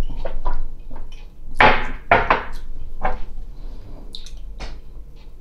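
A person sipping whisky from a tasting glass, with a few short breath and mouth sounds as he tastes it. The strongest are about one and a half to two and a half seconds in, with fainter ones near the end.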